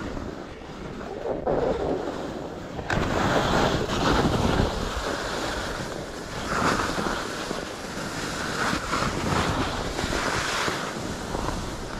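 Ski or snowboard edges scraping and sliding across hard-packed, bumpy snow, swelling with each turn about every one to two seconds, with wind rushing over the microphone.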